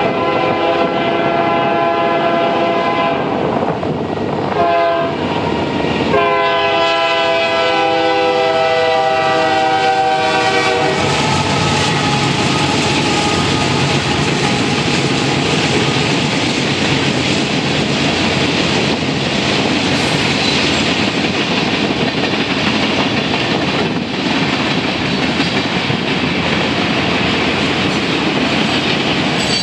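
Union Pacific freight locomotive's multi-tone air horn sounding for the grade crossing: the tail of a long blast, a short blast about four seconds in, then a long blast that ends about eleven seconds in. This pattern is the crossing signal. After that comes the steady noise of the freight train's cars rolling past over the crossing.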